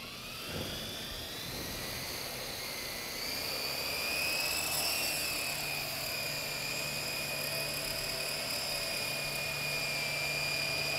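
ArtTech UFO, a small battery-powered coaxial RC helicopter in a disc-shaped shell: its motors and rotors spin up with a rising whine over the first few seconds as it lifts off. They then hold a steady high whine as it hovers.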